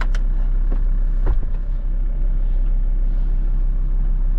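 Volkswagen LT35 van's turbo engine running, a steady low rumble heard from inside the cab, with a couple of light clicks.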